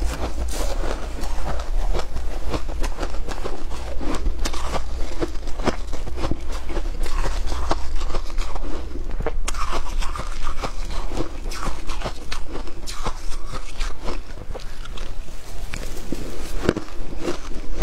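Frozen shaved ice being eaten: dense crunching and crackling as mouthfuls are bitten and chewed, along with a metal spoon scraping into the icy mound.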